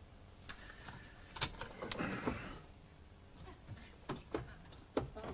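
Faint, scattered clicks and knocks, about nine in all, with a brief soft rustle about two seconds in.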